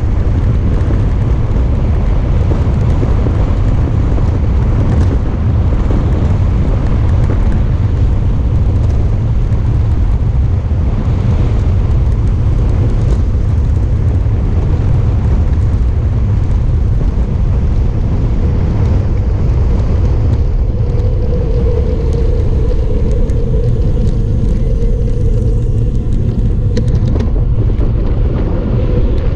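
Wind buffeting the microphone of a bike-mounted GoPro during a fast mountain descent: a loud, steady low rumble. A faint steady tone joins for a few seconds about two-thirds of the way through.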